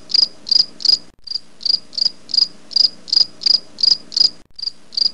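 Cricket-chirping sound effect: short high chirps evenly spaced at about three a second, with two brief breaks, over a faint steady low hum. It starts and cuts off abruptly.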